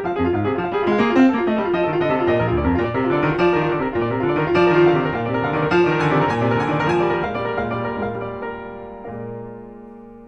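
Background piano music, a quick run of notes that settles on a held chord about nine seconds in and fades away.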